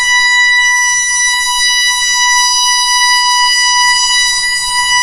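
A loud, steady high-pitched test tone with a buzzy edge from many overtones, played through a large DJ sound system during its sound check, over a faint low hum.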